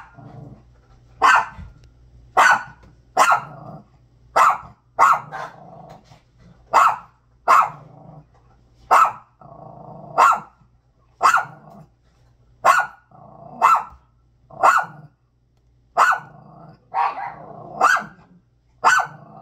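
Small long-haired dog barking loud over and over, about one sharp bark a second, with low growling between the barks.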